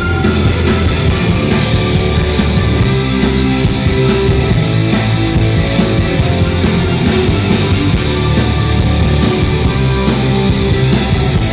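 Live rock band playing loud in a club: electric guitars over drums with a steady beat.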